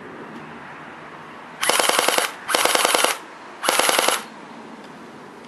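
Well R2 Scorpion electric airsoft machine gun firing three short full-auto bursts, each about half a second of rapid rattling shots, a second or so apart.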